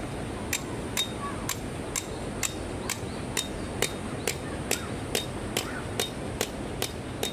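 Hammer strikes on metal at a steady rhythm of about two a second, each with a short ring, over a steady background hiss.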